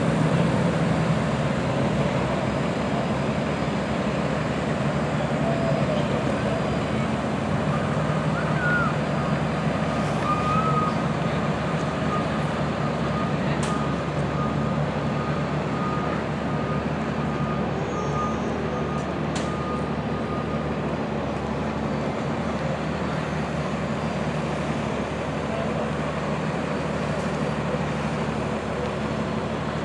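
Steady low hum of an idling bus engine with general outdoor traffic noise. A thin high whine runs over it from about eight seconds in until around twenty seconds.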